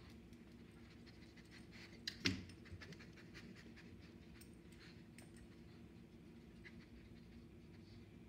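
A beagle panting and sniffing as it searches along a door, over a faint steady low hum, with one sharp knock about two seconds in.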